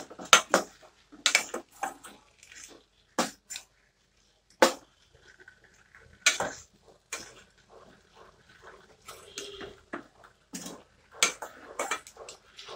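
A spatula stirs chicken pieces and potatoes in a stainless steel pot, making irregular knocks and scrapes against the pot's metal side.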